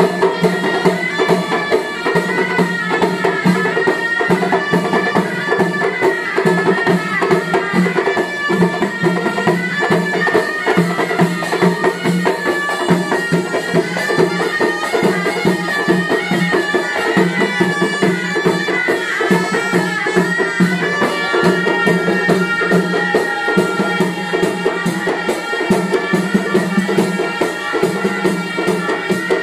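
Traditional Moroccan wedding music: loud, reedy wind instruments play a melody over a steady droning note, driven by fast, even drumming and percussion.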